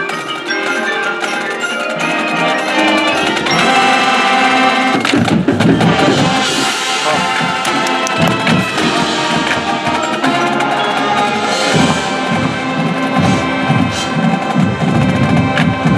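High school marching band playing: drums and pitched percussion strikes over sustained chords, the sound growing fuller and heavier about five seconds in.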